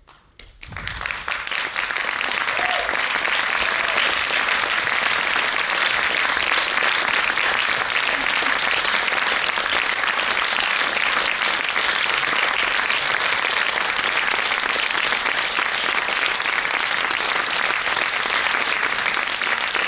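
Audience applauding: the clapping breaks out about half a second in, swells over the next second or so, then holds steady.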